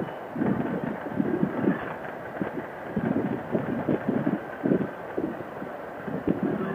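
Snowmobile running along a bumpy trail, its engine noise broken by irregular thumps and rattles as the machine jolts over the rough snow.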